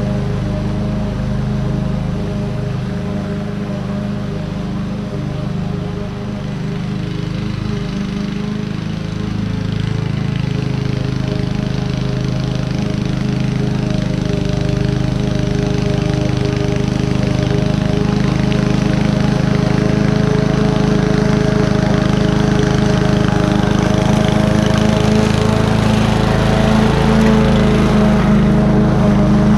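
Honda self-propelled walk-behind mower's single-cylinder four-stroke engine running steadily under load as it cuts and mulches buffalo grass. It is a little quieter about a fifth of the way in, then grows steadily louder as the mower comes close, loudest near the end.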